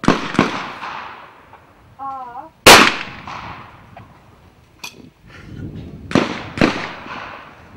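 Trap shotguns fired in turn: two shots about half a second apart, then a short call and the loudest single shot, then another pair of shots half a second apart near the end. The shots ring out with a trailing echo.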